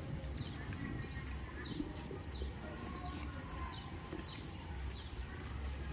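A bird calling over and over in short, high chirps that slide down in pitch, a little under two a second, over a steady low rumble.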